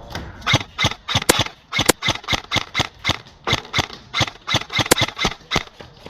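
Airsoft rifles firing a steady string of sharp semi-automatic shots, about three to four a second, with a few louder cracks among them.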